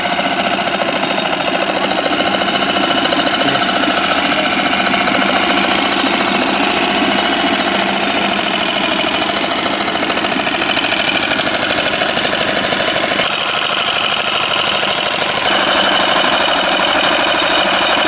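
Small 6 hp four-stroke outboard motor running steadily, its leg churning the water in a test barrel. The tone shifts briefly about two-thirds of the way through.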